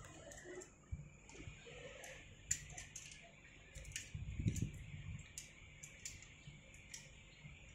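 Rope-access climbing hardware (ascender and carabiners) giving faint scattered clicks and clinks as a rescuer works his way up the rope, with a short low rumble about four and a half seconds in.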